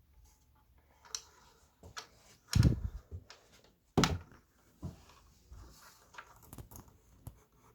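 Small speaker cabinet being hung back on a wall: scattered taps and knocks as it is handled, with two louder thumps about two and a half and four seconds in.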